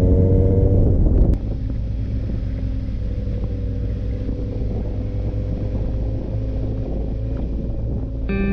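Benelli 600 GT motorcycle's inline-four engine running on the move, with wind rushing over the microphone. Its pitch rises under acceleration, then drops suddenly a little over a second in and settles to a steady cruise.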